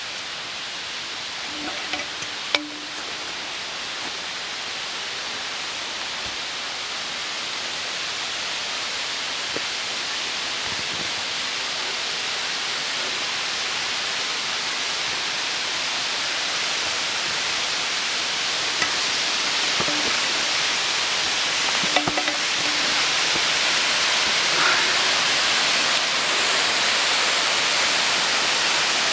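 Waterfall rushing in a steady hiss that grows gradually louder throughout, with a few faint clicks and knocks such as steps on rock.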